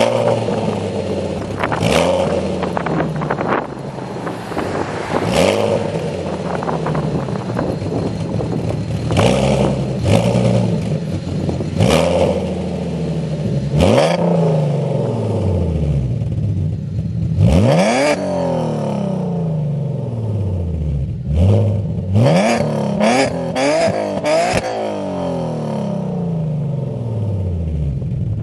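2010 Chevrolet Camaro 3.6-litre V6 with BBK long-tube headers, high-flow cats and a Supertoy axle-back exhaust, free-revved while standing. It gives a long series of sharp blips, each rising fast and dropping back slowly to idle, with a quick run of short blips near the end.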